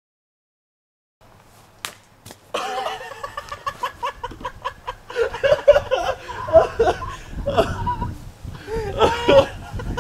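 A couple of sharp smacks about two seconds in, then men laughing and yelling.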